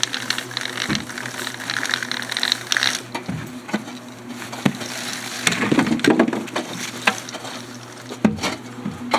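Hand digging in heavy clay: scraping for the first few seconds, then scattered knocks and thuds as clay chunks are shifted, over a steady low hum.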